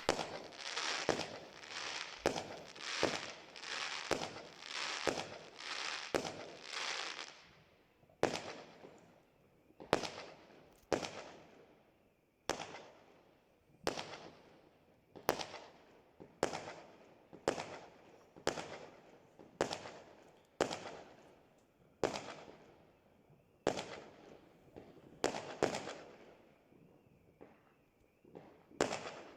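Fireworks going off: sharp bangs over dense crackling for the first seven seconds or so, then separate bangs about once a second, each trailing off in an echo.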